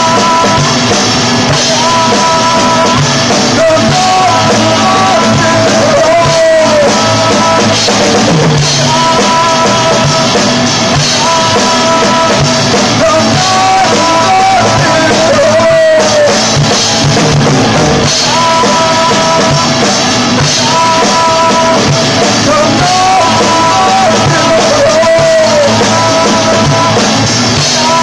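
Live rock band playing: drum kit and strummed acoustic guitar, with singing in a melody phrase that repeats every several seconds.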